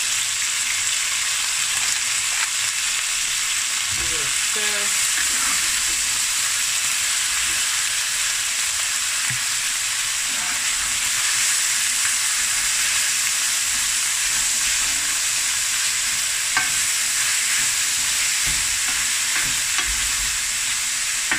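Diced chicken breast frying in olive oil in a stainless steel pan, a steady sizzling hiss, with a wooden spatula stirring and scraping through it now and then.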